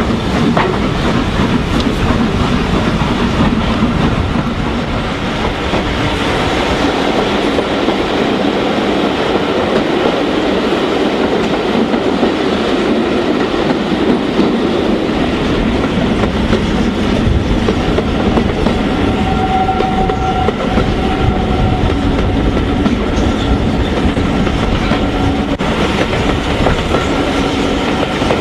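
Steam-hauled passenger train running, heard from a carriage window: a steady rumble with the clickety-clack of the coach wheels over the rail joints.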